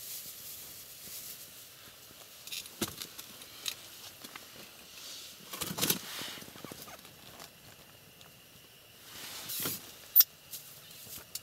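Handling noises: rustling of clothing and small clicks and knocks as hands work an ice-fishing rod and bait, with one sharp, short click about ten seconds in.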